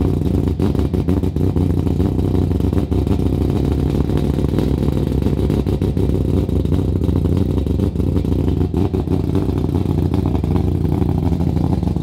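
Mazda 20B three-rotor rotary engine in an RX-7 idling steadily through its exhaust just after a completely cold start.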